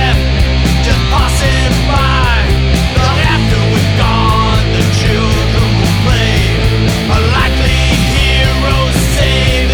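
A loud punk rock song from a full band, with gliding melodic lines over a steady, heavy low end.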